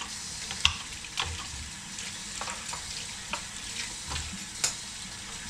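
Vegetable peeler scraping the skin off a cucumber: short, irregular scraping strokes with small clicks, over a steady low hiss.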